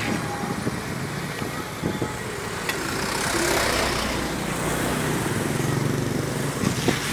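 Road traffic with a heavy vehicle's engine running steadily, and a swell of hissing about three to four seconds in.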